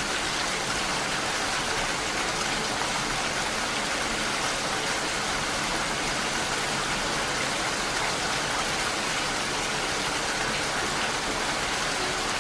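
Rain falling steadily, an even hiss with no single drops or gusts standing out.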